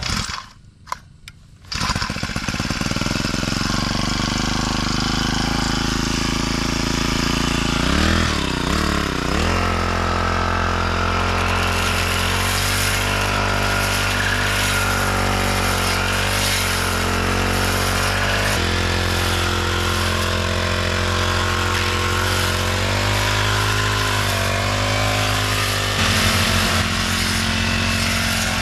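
Backpack four-stroke brush cutter engine running fast and steady after a short quiet gap about a second in, its pitch dipping and rising as the cutting head bites into the grass.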